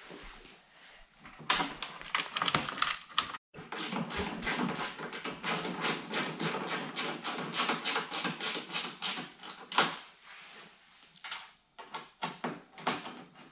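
Quick, irregular run of taps and clicks, several a second, from hands working a carbon fiber side skirt onto the car's sill, with a quieter stretch about ten seconds in.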